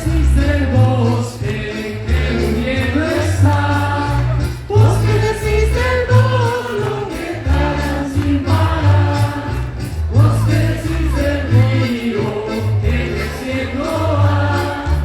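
A large choir singing together over instrumental accompaniment with a bass line that moves note by note in a steady rhythm.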